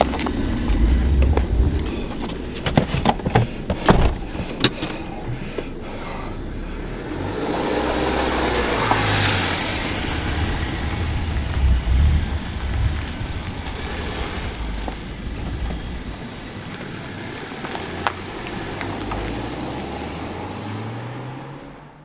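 A few sharp knocks in the first seconds, then a Honda Accord sedan driving off past, its engine and tyre noise swelling and then slowly fading.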